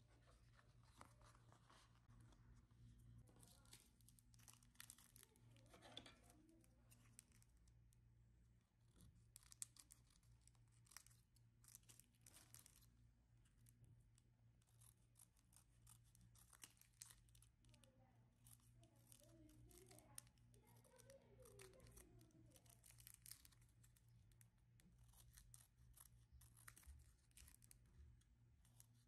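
Quiet handwork on a colored-sand art picture: a continual irregular run of scratchy clicks, rustles and peeling-paper sounds, over a low steady hum.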